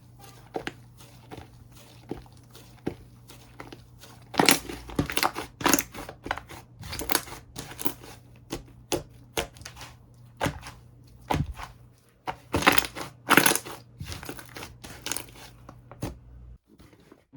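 Slime being squished and pressed by hand, giving an irregular string of sharp crackling pops and clicks, with louder runs a few seconds in and again near the end, before it stops abruptly.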